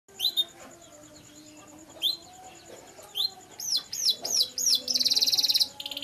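Yellow domestic canary singing: a few separate sharp up-and-down chirps, then a quick run of descending swoops, ending in a rapid trill near the end.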